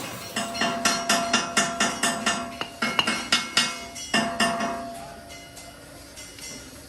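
Rapid hammer blows on metal, about four a second, each ringing briefly. They stop about four and a half seconds in, leaving a few faint ticks.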